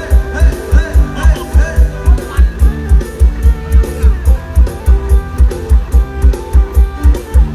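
Loud dance music played through a rot hae procession truck's sound system: a heavy bass drum about four beats a second under a bending guitar lead.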